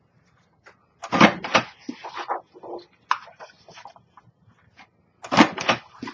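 We R Memory Keepers Lucky 8 paper punch being pressed through cardstock while the sheet is slid and repositioned at the corner. Two louder clunks come about a second in and near the end, with lighter paper rustles and clicks between.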